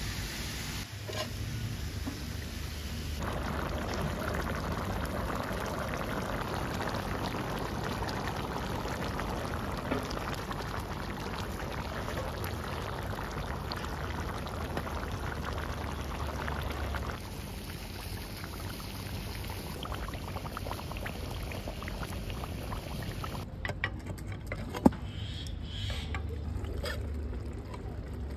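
Water being poured onto an upturned ceramic plate set over the layered plov in a cast-iron kazan, a steady splashing pour for about fourteen seconds. It tails off into quieter trickling, then a few sharp clinks near the end, one of them loud.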